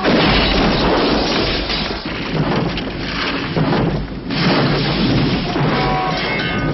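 Action-film sound effects: a loud rumbling roar that starts abruptly, like an explosion's blast, then runs on as a dense noisy rumble with a couple of brief dips.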